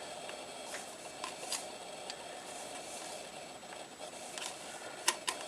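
Faint handling of a small multimeter's plastic case as it is being opened: a few light clicks and taps, with two sharper clicks near the end.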